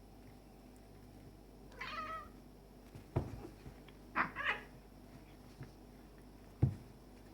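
Cats play-fighting: a short meow about two seconds in, then two quick meows near the middle, with a couple of dull thumps in between and near the end.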